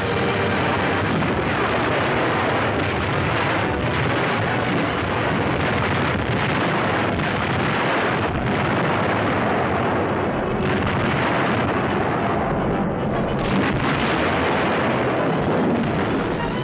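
Film soundtrack of an artillery barrage: muzzle-loading field cannons firing and shells bursting, many blasts overlapping into one dense, unbroken rumble.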